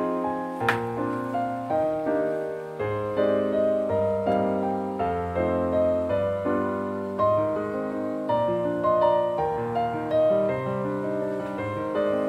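Background piano music: a gentle melody of single notes over a steady accompaniment. A sharp click sounds under a second in.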